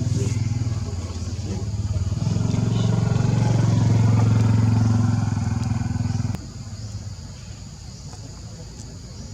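A motor engine running steadily, swelling louder in the middle, then cutting off abruptly about six seconds in.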